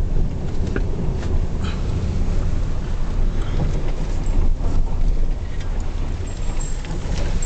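Motor vehicle driving, heard from inside: a steady low rumble of engine and road noise with scattered light knocks and rattles.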